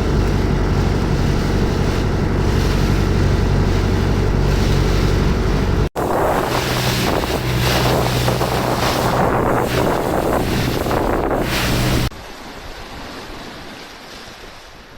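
Boat engine running steadily under loud wind on the microphone and rushing water, broken by sudden cuts about six and twelve seconds in; the middle stretch adds splashing spray, and the last few seconds drop to a quieter wash of waves and wind without the engine.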